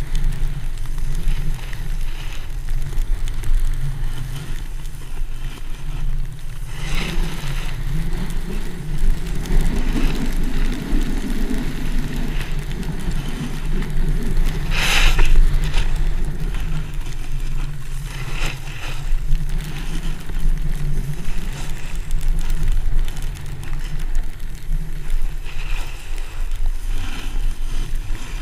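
Wind rumbling on the microphone of a pole-mounted action camera, with the hiss and scrape of a snowboard sliding over packed snow. Sharper scraping rushes, likely from the board's edges digging into turns, come about a quarter of the way in and again about halfway through.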